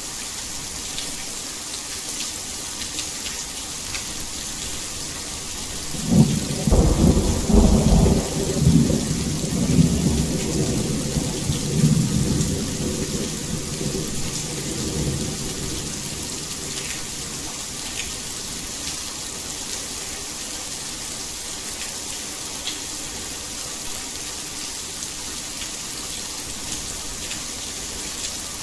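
Heavy rain falling in a steady hiss. About six seconds in, a roll of thunder rumbles low, loudest over the next several seconds, then fades away.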